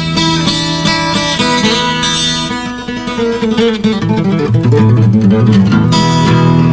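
Background music: an instrumental guitar passage with no singing.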